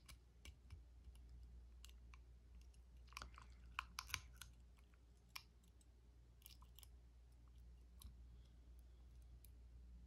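Faint, irregular small metallic clicks and scrapes of a lock pick and tension tool working the small keyway of a Master school-style combination padlock. A cluster of sharper clicks comes about three to four seconds in.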